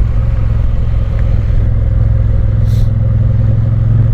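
Triumph Bonneville's parallel-twin engine running steadily with a constant low drone, with a brief faint click about three seconds in.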